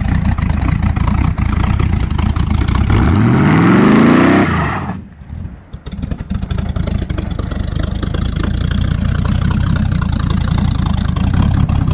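A Chevy K1500 pickup's engine revving hard. The pitch climbs steeply about three seconds in and falls away near five seconds, then the engine runs on loud and rough.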